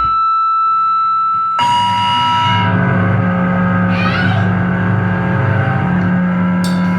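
Harsh distorted noise music: a single held feedback-like tone, then about one and a half seconds in a loud, dense distorted drone crashes in and holds, with a rising squeal in the middle and a couple of sharp high hits near the end.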